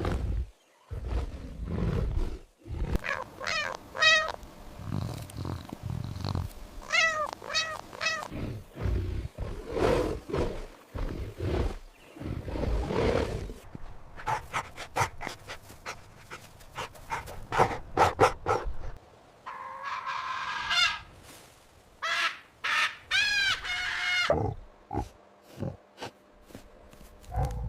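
Recorded animal calls played one after another: deep roars and growls alternating with higher, pitched cries that rise and fall, and one longer held call about two-thirds of the way through.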